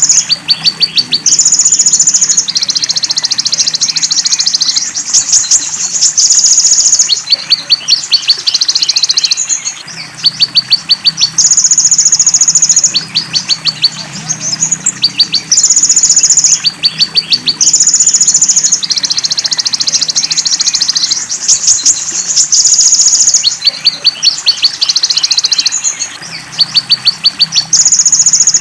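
Looped birdsong-training recording of a konin, the van Hasselt's sunbird, singing high, shrill phrases. Held whistling notes alternate with rapid ticking trills of about eight ticks a second, repeating over and over with short gaps.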